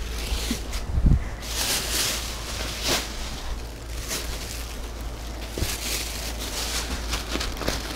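Rustling and shuffling of packaged bedding and shopping bags being rummaged through, uneven throughout, with a low thump about a second in.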